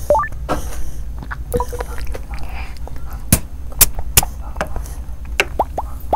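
Close-miked wet mouth sounds of a person eating a spoonful of soft mango and pomegranate fruit dessert: chewing and slurping, with sharp smacking clicks and short squeaky glides, over a steady low hum.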